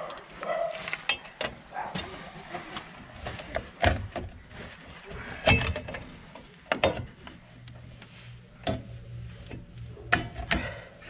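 Irregular metallic clicks and knocks from a Ford Transit Mk6 rear drum brake being worked on by hand: the brake drum comes off the hub, then the brake shoes and their spring hardware are handled with pliers.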